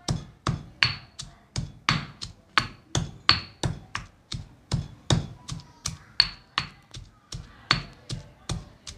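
Stone pestle pounding garlic, shallots and chilli in a stone mortar, a steady run of sharp knocks at about two to three strikes a second, some with a brief ring from the stone. The spice paste is being pounded only coarsely.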